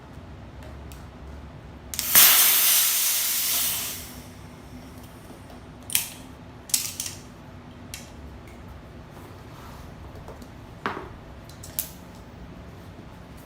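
Air hissing out in a loud rush for about two seconds, fading a little before it stops, followed by a few sharp metallic clicks and knocks of tools being handled during a moped tyre change.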